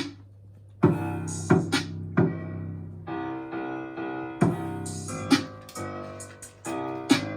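Background music: a piano-like keyboard melody with sharp drum hits.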